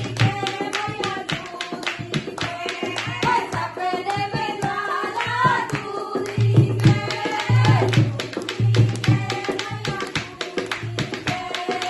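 Devotional bhajan music: a dholak playing a fast, dense rhythm with recurring deep bass strokes, under a melody line.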